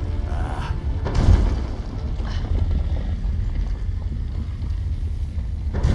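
Deep, steady low rumble from a film's sound design, swelling louder about a second in, with a sharp hit near the end.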